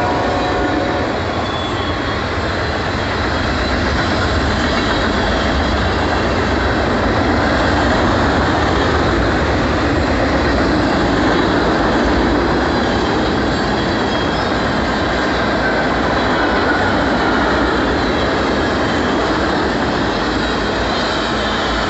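Freight train cars rolling past at speed: a steady rumble and rattle of steel wheels on the rails. The locomotive horn trails off in the first second.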